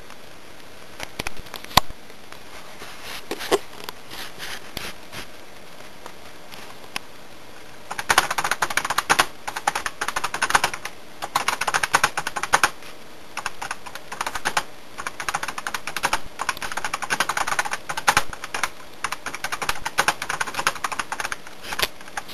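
Typing on a computer keyboard: a few scattered key presses, then fast runs of typing in bursts from about eight seconds in.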